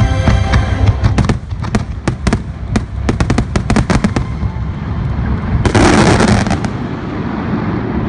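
Fireworks going off: a rapid volley of sharp bangs and cracks, then a louder rushing, crackling burst about six seconds in, over a steady low rumble. Show music fades out in the first second.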